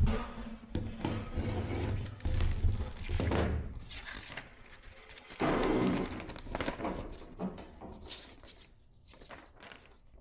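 Handling of paper shipping documents and their plastic pouch: irregular rustling and crinkling with a few dull thunks and knocks. The loudest rustle comes a little past the middle.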